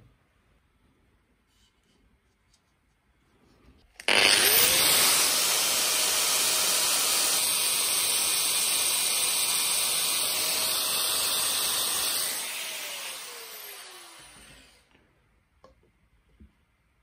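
Right-angle power sander with a red sanding pad starting up about four seconds in, with a rising whine, and sanding the wooden base of a goblet with a steady noise. It is switched off and spins down with a falling whine near the end.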